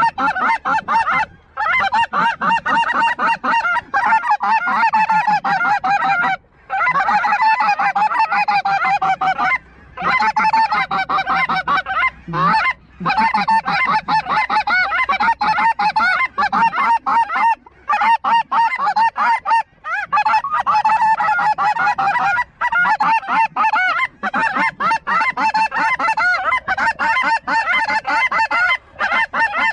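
A large flock of snow geese calling overhead: a dense, continuous chorus of many overlapping high-pitched honks, broken off briefly several times.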